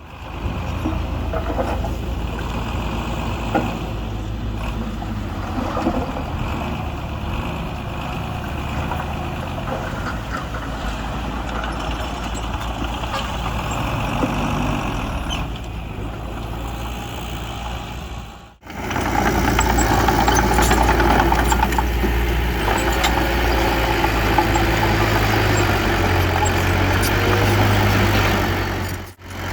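Heavy diesel earthmoving machinery running steadily, with a deep engine hum and a few short knocks. The sound cuts out briefly about two-thirds of the way through and comes back louder.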